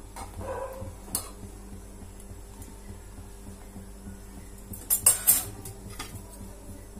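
Steel kitchen tongs clinking against metal while a naan is turned over a gas flame: a single click about a second in, then a quick cluster of loud metallic clinks about five seconds in.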